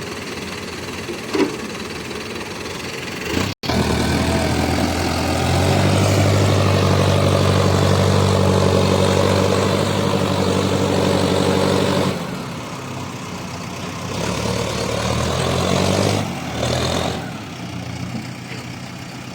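Heavy diesel engine of the excavator or tractors on a mud-loading job running. A brief dropout comes about three and a half seconds in; then the engine runs louder and higher for about eight seconds, drops back to a lower hum, and rises again briefly near the end.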